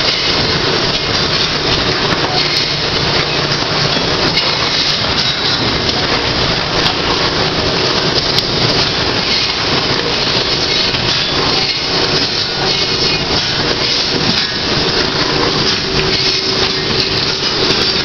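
Sawmill machinery running: chain conveyors rattling and redwood boards knocking and clattering against each other and the steel deck as they ride the transfer chains, a continuous dense racket with frequent sharp knocks.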